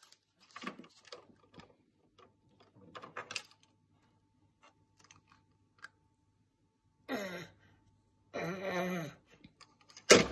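Light plastic clicks and clatter of a baby handling toy keys on a plastic musical toy barn, with two short vocal sounds about two-thirds of the way through. Just before the end the toy suddenly starts up loudly as the baby presses it with a key.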